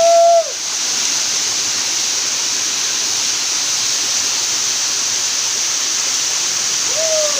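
Waterfall: falling water rushing in a steady, even hiss. A short held vocal call fades out about half a second in, and another begins and falls in pitch near the end.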